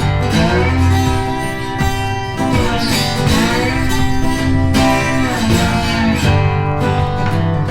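Background music led by acoustic guitar, with sliding, bending notes.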